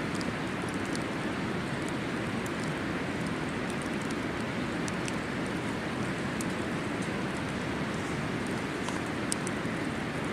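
Wood campfire crackling, with scattered sharp pops over a steady rushing background noise.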